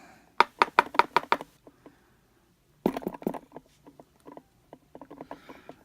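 Small sharp clicks of lock pins and parts of a disassembled Schlage lock being handled and set on a hard surface: a quick run of about eight clicks early in the first two seconds, then a cluster of clicks and scattered lighter taps.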